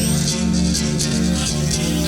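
Minimal techno DJ mix playing: a steady beat with a looping pitched, plucked-sounding riff.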